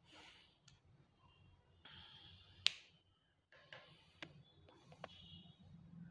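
Quiet room tone in a small room, with faint rustling and a few sharp clicks, the loudest about two and a half seconds in.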